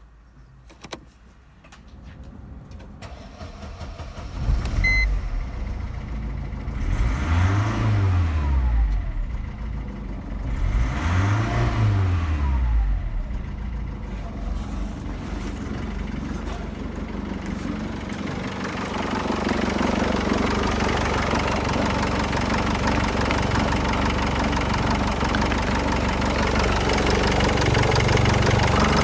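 Mercedes OM611 2.2-litre four-cylinder common-rail diesel starting about four seconds in. It is revved up and back down twice, then settles to a steady run that gets a little louder in the second half.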